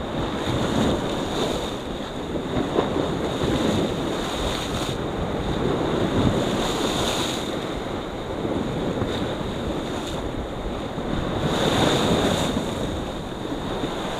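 Sea waves washing against a rocky shore in surges that rise and ease, with wind buffeting the microphone.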